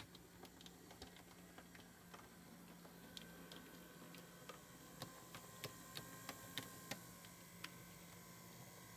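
Faint, irregular clicks and ticks over a low steady hum, the clicks coming more often in the middle of the stretch.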